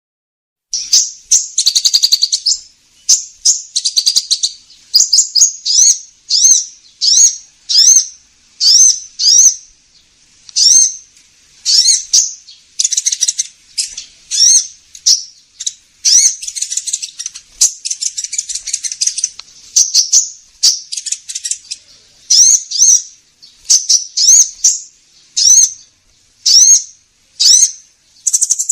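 Lure recording of a sunbird ('kolibri ninja') calling: high, sharp notes repeated about once or twice a second, broken by a few short stretches of rapid chattering. It is played as bait to draw the bird in.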